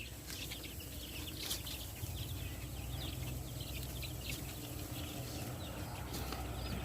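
A pen of eight-day-old Lohmann Brown chicks peeping continuously, a dense chatter of short high chirps over a steady low hum. Among them the chicks' 'snoring' (ngorok), a respiratory rattle, is said still to be heard; the keeper blames it on poor air circulation and cold drafts in the brooder.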